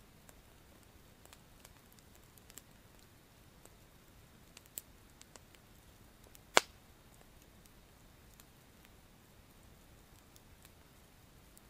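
Small wood campfire crackling: scattered faint pops, with one sharp, much louder pop about six and a half seconds in.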